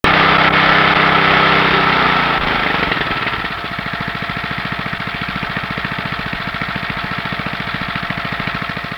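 A motor running with a fast, even pulse. It starts abruptly with a steady low hum and settles about two and a half seconds in into rapid, regular chugging, slightly quieter.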